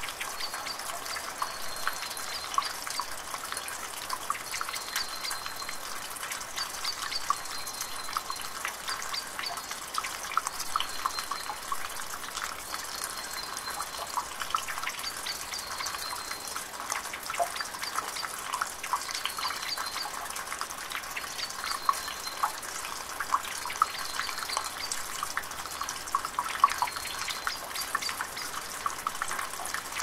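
Water trickling and dripping: a steady hiss of running water full of small droplet plinks. A short high chirp recurs every two to three seconds.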